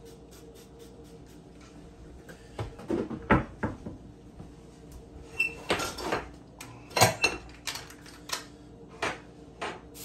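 Kitchen clatter: dishes, pans and utensils knocking and clinking in a quick, uneven run that starts a couple of seconds in, the loudest two clanks about a third and two thirds of the way through, over a faint steady hum.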